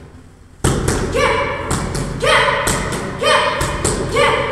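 Kicks and punches slapping into a handheld karate focus pad, a run of sharp strikes, with a short, steady-pitched shout (kiai) from the young student on four of them.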